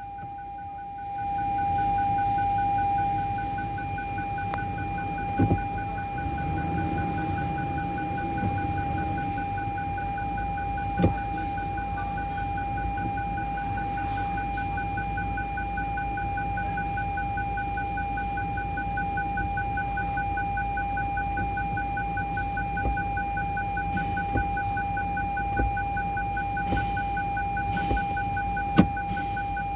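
A steady electronic tone with a faster, fainter pulsing beep above it, over the low hum of the Land Cruiser's 1GR-FE V6 idling; a few light clicks come in the second half.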